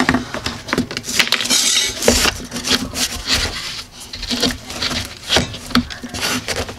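Irregular wooden clicks and knocks of laminate flooring planks being handled and fitted together.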